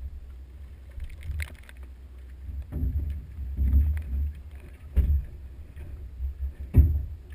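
A few irregular knocks and thuds in a small aluminium boat, the loudest near the end, over a steady low rumble of wind on the microphone.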